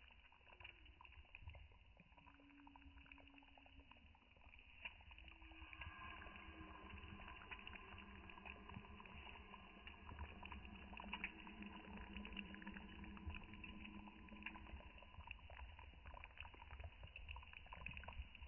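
Dried-bean stew faintly bubbling in a clay pot over a wood campfire, with many small pops and crackles. A faint steady hum joins in from about a quarter of the way through until near the end.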